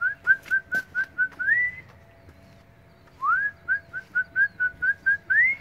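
A person whistling to call dogs: two runs of quick, short whistle notes, about five a second, each run ending in a note that slides up, with a short pause between the runs.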